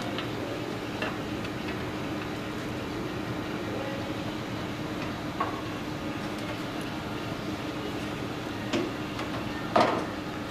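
A few short knocks as a hollow sway bar is fed into a car's front suspension, the loudest near the end, over a steady workshop hum with a constant low tone.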